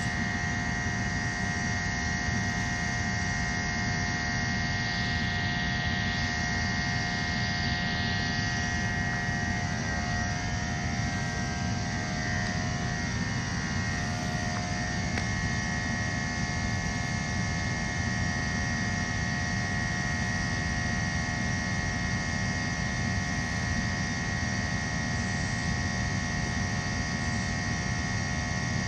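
Two EMD diesel locomotives, an SD40E and an SD60E, running light engine past at close range: a steady diesel engine drone with low rumble and a few held tones that waver as the units go by mid-way.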